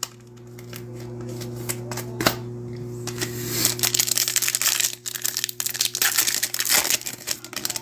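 Trading cards and a crinkly pack wrapper being handled, a dense crackle of small clicks that gets busier about three seconds in, over a steady low hum.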